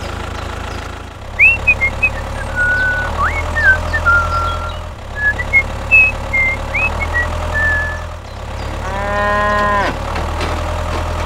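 A cow moos once, about a second long, near the end, over a steady low motor hum. Short high bird-like chirps come and go through the first part.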